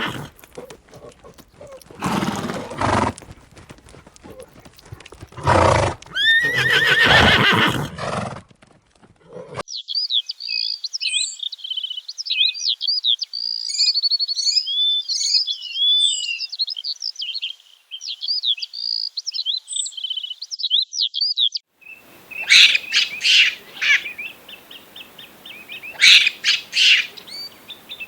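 Loud animal calls in several bursts, then a songbird singing quick, high chirping phrases for about twelve seconds, then harsher bird squawks in bursts near the end.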